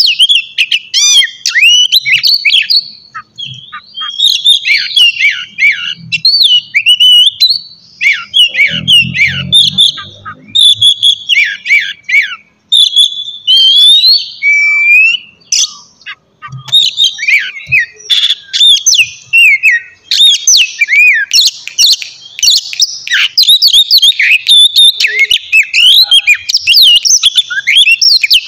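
Oriental magpie-robin (kacer) singing a loud, fast, varied song of whistles and chirps, phrase after phrase with only brief pauses.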